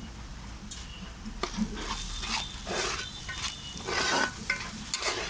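Metal ladle stirring and scraping in a pot of chicken curry: a run of scraping strokes with several clinks of metal on metal.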